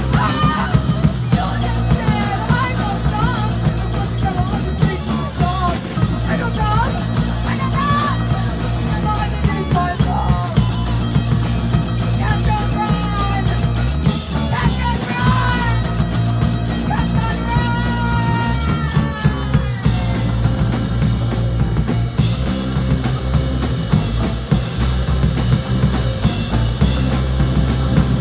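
Live punk rock band playing: a singer over electric guitars, bass guitar and a drum kit. The vocals drop out about two-thirds of the way through, leaving the band playing on.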